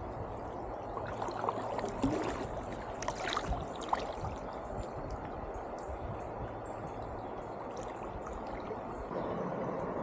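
River water running steadily over rocky shoals, with a few short knocks and splashes in the first few seconds.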